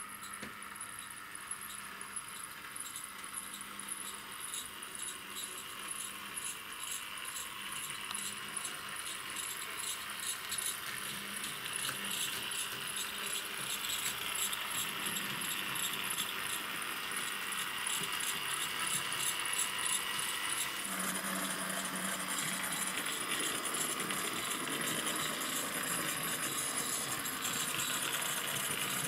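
H0-scale model trams running on the track: a steady small-motor whir with fine, rapid rattling of wheels on rails. It grows louder and changes character about two-thirds of the way through.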